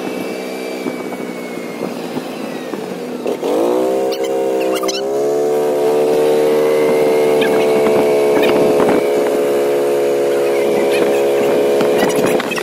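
Golf cart motor running as the cart drives along, its pitch climbing about three and a half seconds in as the cart picks up speed, then holding steady.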